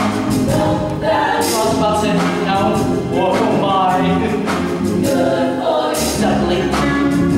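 A female chorus singing a show tune in harmony, with instrumental accompaniment underneath.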